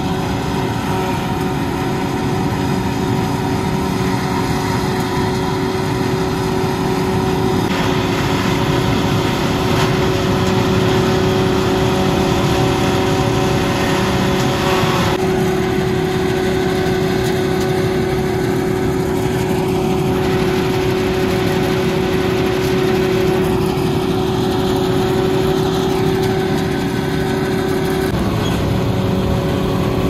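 Hyena 700 self-propelled silage harvester and a Deutz-Fahr tractor running together under load while harvesting: a loud, steady engine drone with a strong hum. The sound changes abruptly twice, about a quarter of the way in and again near halfway.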